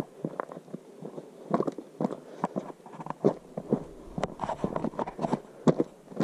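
Footsteps of a person walking steadily along a rough trail, about two steps a second.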